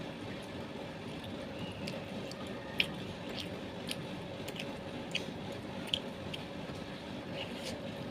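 A person chewing grilled meatballs (bakso bakar) close to the microphone: wet squishing with scattered sharp mouth clicks, the loudest about three seconds in, over a steady low hum.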